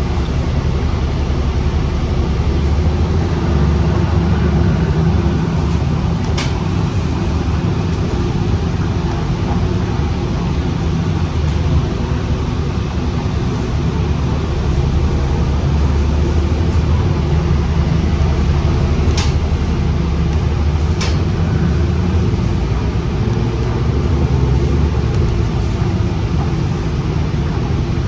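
Gillig Low Floor transit bus heard from inside the passenger cabin while it drives: a steady low engine and road rumble. Three short, sharp clicks cut through it, one about six seconds in and two close together later on.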